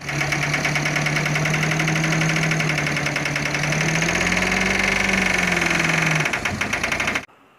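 Heavy dump truck's diesel engine running with a steady rapid clatter while the tipper bed is raised to dump sand, its pitch rising briefly about four to five seconds in and settling again; the sound cuts off suddenly near the end.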